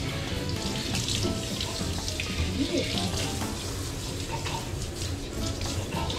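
Water running from a hand-held shower head, spraying onto a small dog's coat and splashing on the bath floor.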